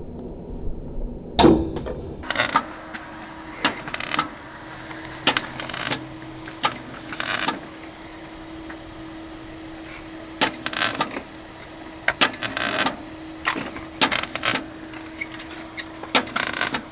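MIG welder stitch-welding a steel quarter panel: a dozen or so short, irregular bursts of crackling arc, each under a second long, over a steady low hum, with a sharp knock about a second and a half in.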